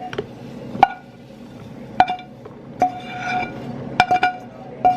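A metal utensil clinking and scraping against a pan as cooked food is scooped out into containers. There are about seven sharp clinks, each with a short ring, several in quick succession near the end.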